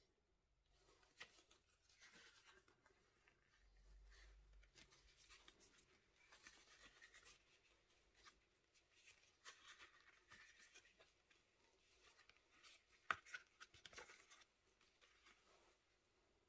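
Faint rubbing and handling of a WESN Forsta veg-tan leather wallet as fingers flex it and open its pockets, with two sharper clicks about a second apart late on.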